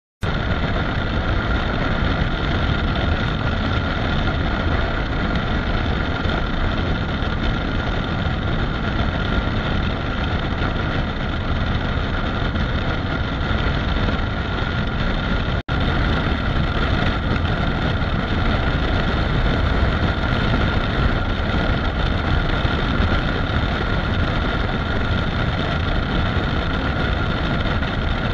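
Honda CRF250 Rally's single-cylinder engine running steadily at highway speed, mixed with heavy wind and road noise on the bike-mounted camera. The sound cuts out for an instant about halfway through.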